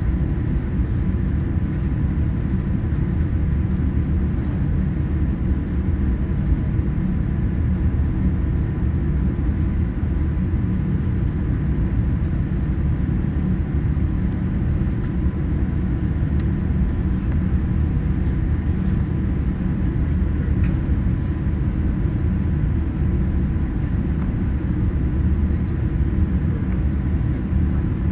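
Steady low rumble of cabin noise inside a Boeing 787-9 taxiing after landing, with a faint steady tone and a few faint clicks.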